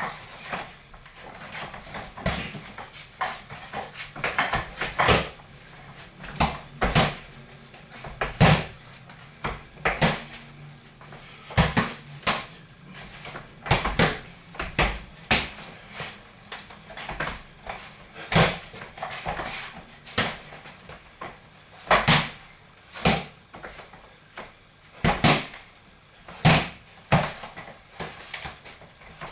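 Boxing gloves striking punch mitts in combinations: sharp smacks, often two or three in quick succession, with short pauses between the combinations.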